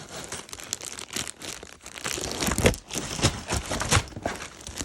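Packaging being torn and crinkled open by hand, a dense run of crackling and ripping with sharp bursts, loudest in the second half.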